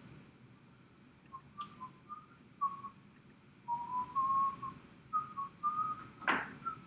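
A person whistling a tune: a run of short and held notes that step up and down in pitch. A sharp knock comes about six seconds in.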